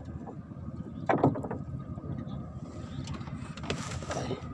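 Steady wind and choppy water around a small wooden boat, with a sharp knock about a second in and a brief rush of handling noise near the end as the camera is moved.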